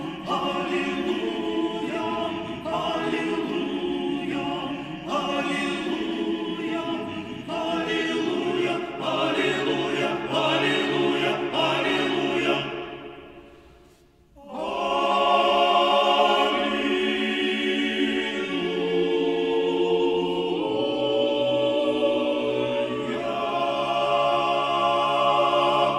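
Male a cappella ensemble of nine voices singing a Christmas carol in close harmony. About halfway through, the singing fades into a short pause, then comes back in with long held chords.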